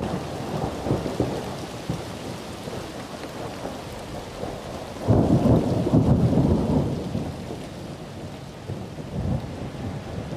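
Steady heavy rain, with a deep rumble of thunder swelling about halfway through and dying away over a couple of seconds.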